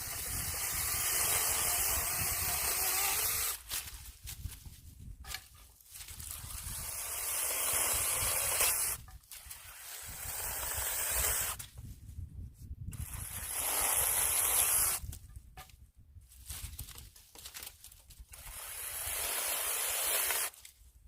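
Battery-powered mini chainsaw running in about five separate cuts of two to three seconds each, pruning fruit-tree branches. Its motor whines and grows louder through each cut, with short pauses between.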